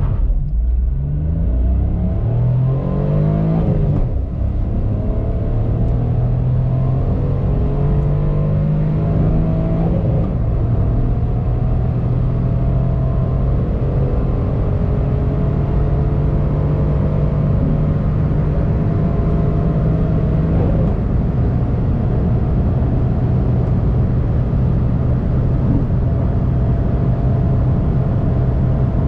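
Mitsubishi Space Star 1.2 MIVEC's three-cylinder engine under hard acceleration, heard from inside the cabin. Its pitch climbs steadily, then falls at gear changes about 4, 10 and 21 seconds in, and each later gear rises more slowly as the car runs up toward top speed.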